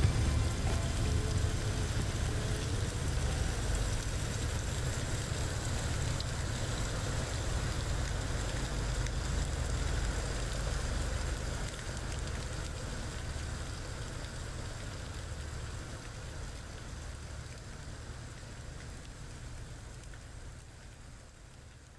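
Steady hiss of rain with a heavy low rumble of wind or traffic, gradually fading out over the second half. The last notes of a song trail off in the first few seconds.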